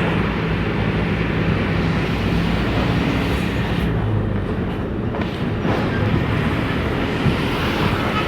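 Volksbus 17-230 city bus engine running under way, heard from inside the bus over a steady road and body rumble; the engine's low hum is clearest in the first few seconds.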